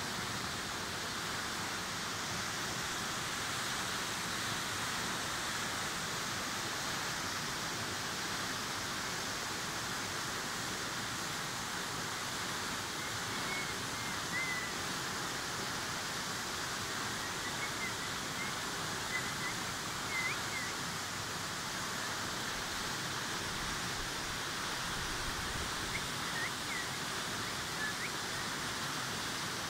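Steady rushing of a tall waterfall pouring down a rock face, with a few faint high chirps now and then.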